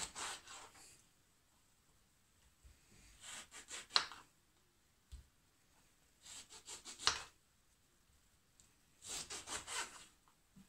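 Kitchen knife slicing through unpeeled orange halves on a wooden cutting board: four bouts of quick rasping strokes through peel and flesh, with the blade knocking sharply on the board twice.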